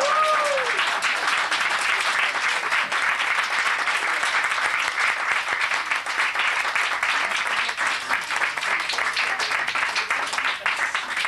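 A roomful of people applauding, with a brief voice at the start.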